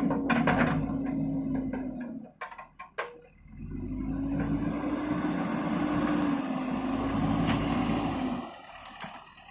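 A JCB backhoe loader's diesel engine running steadily with a whine, breaking off about two seconds in, when a few sharp knocks are heard, then running again before dropping away near the end.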